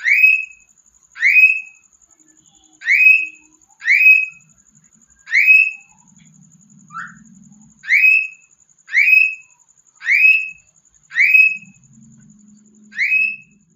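Cockatiel giving loud, short, rising whistled calls over and over, about ten of them, roughly one every second or so, with a smaller, quieter call in a gap about seven seconds in.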